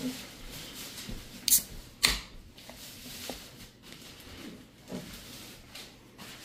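Aluminium Busch Light beer can being cracked open: two sharp snaps of the pull tab and the release of gas, about half a second apart, followed by a few faint handling clicks.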